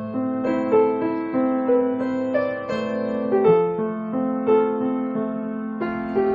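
Background music: a piano melody of separate notes over held bass notes.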